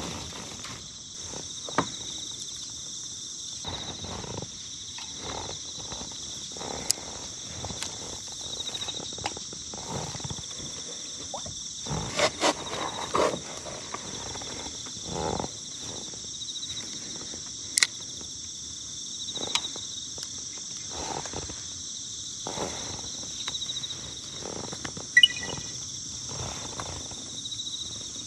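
Steady high-pitched chorus of insects chirring from the shore, with scattered clicks and knocks from fishing tackle being handled in an inflatable boat, the loudest cluster about halfway through, and a brief high chirp near the end.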